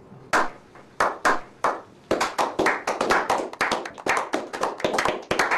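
A small group of people clapping: a slow clap of single, widely spaced claps that builds after about two seconds into quicker, overlapping applause.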